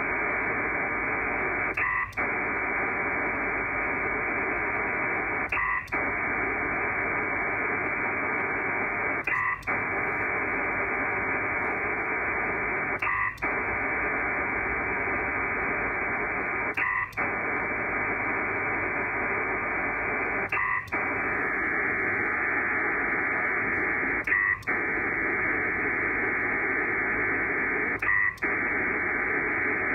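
Pactor III digital data signal heard over a radio: a dense hiss of many tones, sent in long bursts. Every 3.7 seconds or so it breaks off briefly with a short blip, the ARQ handshake in which the receiving station acknowledges each packet.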